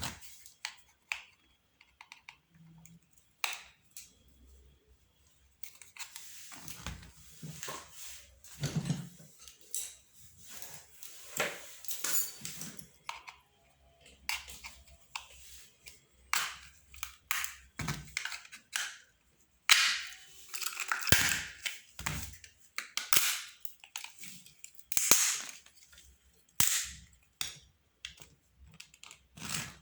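Old telephone being taken apart by hand: an irregular string of sharp plastic clicks, snaps and knocks as the casing and parts are handled and pried. A few louder snaps come about twenty and twenty-five seconds in.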